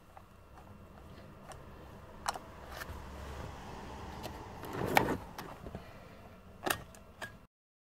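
Scattered small clicks and knocks over a low rumble, the loudest about five seconds in. The sound cuts off suddenly near the end.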